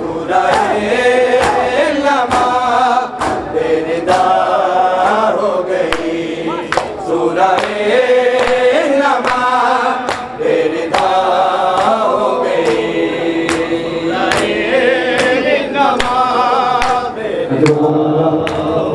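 A group of men singing a noha (Shia lament) in chorus, with a steady beat of hand strikes on bare chests (matam) keeping time with the singing.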